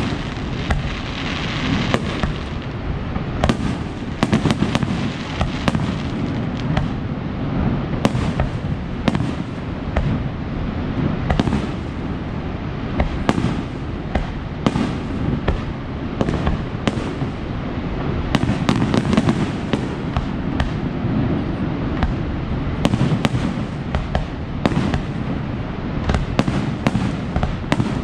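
Fireworks display: a rapid, continuous run of bangs and crackling shell bursts, dozens of them, over a steady low rumble.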